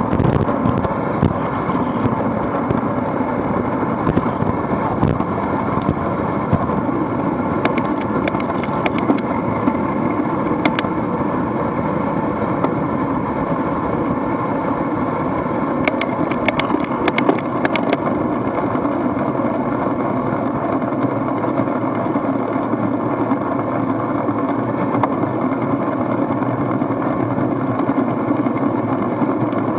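Steady rush of wind and tyre noise on a bicycle-mounted action camera riding in a pack of road bikes at about 16 to 28 mph, with scattered sharp clicks, clustered in a burst about two-thirds of the way through.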